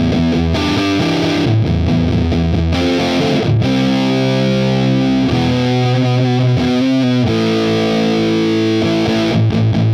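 Electric guitar played through a Caline CP504 M:Fuzz classic fuzz pedal: thick, fuzz-distorted chords held and changed every second or two.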